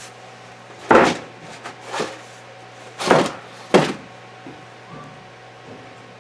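Four clunks and knocks, about a second apart, with a few lighter taps between, as the metal parts of a small camper gearbox are handled and set down.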